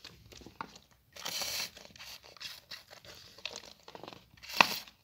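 Plastic bag crinkling and rustling as it is handled, with a louder rustle about a second in and a sharp crackle near the end.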